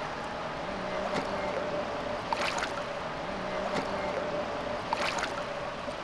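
Shallow stream water sloshing and splashing as a small poodle paddles in it, held in the water by hand; a handful of short, sharp splashes over a steady wash of water.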